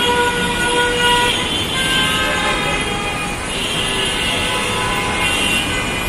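Vehicle horns, bus horns among them, honking again and again and overlapping at several different pitches over the steady din of a jammed city road full of idling and crawling engines.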